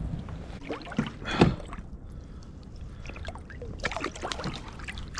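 Sea water splashing and sloshing against the side of a kayak as a thornback ray is lowered by hand into the sea, with a few small splashes about a second in and again near four seconds over a low steady rumble.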